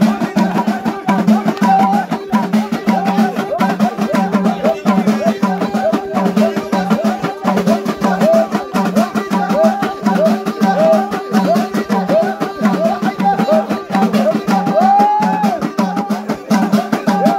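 Moroccan folk music played live by a group: a wavering, ornamented melody over a steady drone, driven by a fast, even beat of frame drums and hand percussion.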